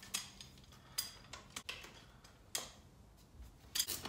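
Irregular metallic clicks and clinks, about half a dozen sharp ones with short ringing tails, from hand tools and steel bolts as the bolts holding the front face on a CD009 transmission case are taken out and set down.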